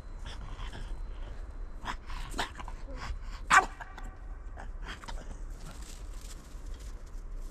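French bulldog vocalising, with one short, loud bark about three and a half seconds in among scattered short noises.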